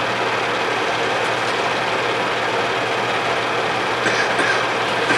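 Film projector running: a steady whirring noise with a low hum underneath.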